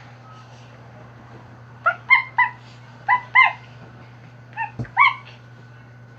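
Small dog giving short, high-pitched yips and whimpers in three quick groups, about eight in all, with a sharp click among the last group.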